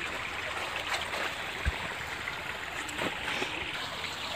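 Steady rushing background noise, with a single dull thump about one and a half seconds in and a few faint knocks.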